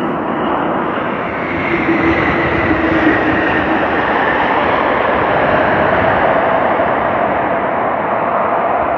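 Jet engines of an ANA Boeing 777-300 passing on its landing approach: a steady roar that swells through the middle, with a whine that slowly falls in pitch as the plane goes by.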